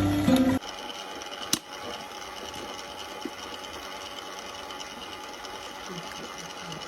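Music cuts off about half a second in, and a washing machine runs with a steady hum and a faint high whine; a single sharp click sounds about a second and a half in.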